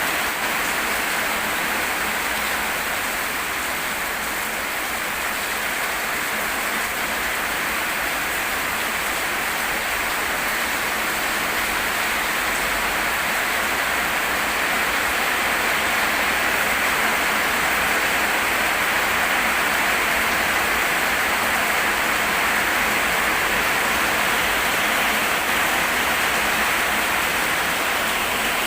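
Rain falling steadily: a dense, even hiss of rain.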